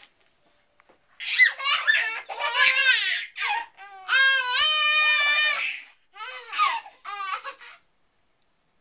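Two babies laughing and squealing in short bursts, starting about a second in, with one long high squeal in the middle.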